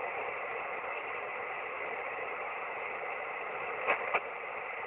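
Shortwave receiver hiss on the 17-metre amateur band (18140 kHz, single sideband): steady band noise in narrow radio audio, with two short crackles about four seconds in.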